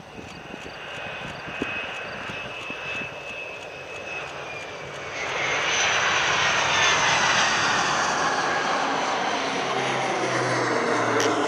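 Boeing MQ-25 Stingray's turbofan jet engine whining steadily, then the aircraft passes close by, growing louder about halfway through with a falling pitch as it goes past.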